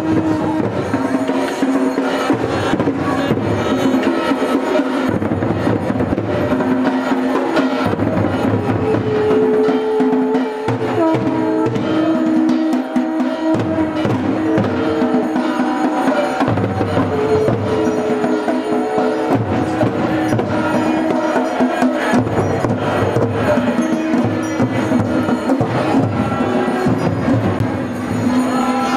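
Procession music: drums beating steadily under long held tones from conch shells, several sounding at once and changing pitch every few seconds.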